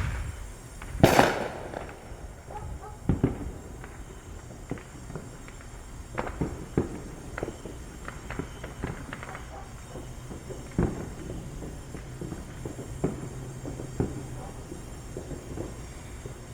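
Fireworks and firecrackers popping at irregular intervals, one loud bang about a second in and a dozen or so smaller pops scattered after it.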